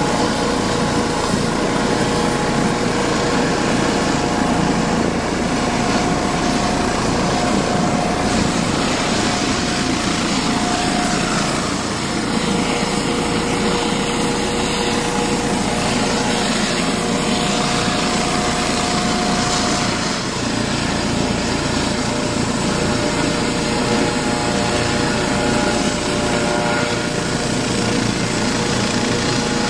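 Eurocopter EC155B helicopter running on the ground, its twin turboshaft engines and main rotor turning steadily: an even turbine whine over the rotor and engine noise.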